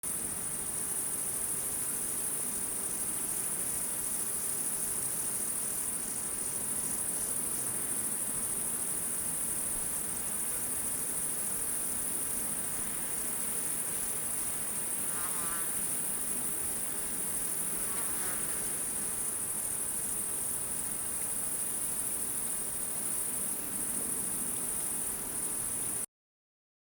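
Night chorus of crickets and other insects: a dense, steady, high-pitched trilling that does not let up. Two short warbling chirps stand out about halfway through. The chorus cuts off suddenly near the end.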